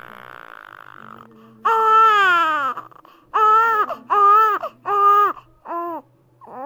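Infant crying: one long falling wail about two seconds in, then a run of five shorter cries about a second apart.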